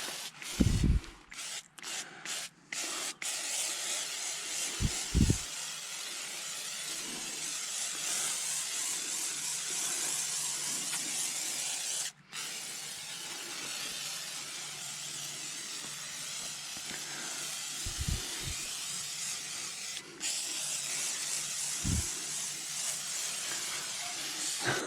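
WD-40 aerosol can spraying in a steady hiss. A few short squirts come first, then long continuous sprays with brief pauses between them. A few dull knocks sound along the way.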